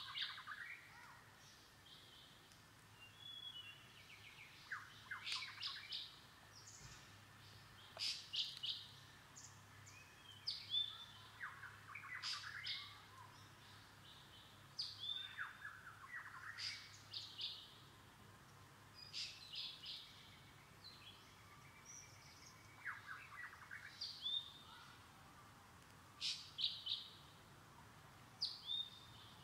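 High, bird-like chirping calls in short bunches every second or two, some with quick falling whistles.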